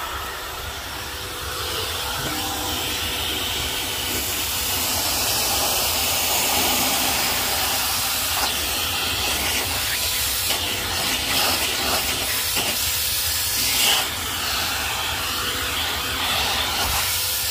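Filter Queen Majestic canister vacuum running with its suction turned up, a steady airy hiss over a faint steady hum, as its dusting brush sucks fine dust off a wooden shelf. The level rises a little in the first couple of seconds.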